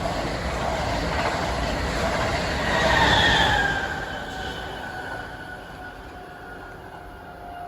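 A passenger train passing at speed: a steady rushing rumble of wheels on rail, loudest about three seconds in. Thin whining tones fall in pitch as the train moves away and the sound fades.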